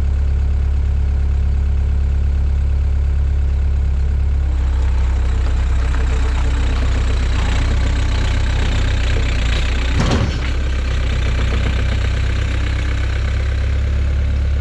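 2004 Takeuchi TL130 skid steer's diesel engine running steadily with a deep, even hum as the machine is moved, with one short knock about ten seconds in.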